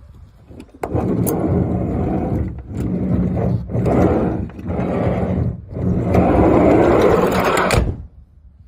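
Manual sliding door of a 100-series Toyota HiAce running along its track with a loud rattling clatter (ガラガラ), in four or five runs with short breaks, which stop abruptly near the end. The rattle points to a worn part in the door mechanism.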